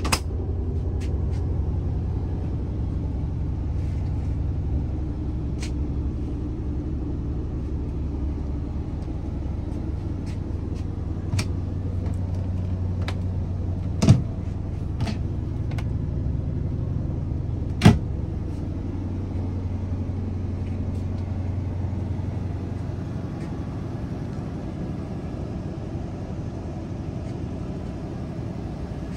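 A steady low machine hum that weakens after about 23 seconds, with light clicks and two sharp knocks about 14 and 18 seconds in as cabinet latches and a window shade are handled.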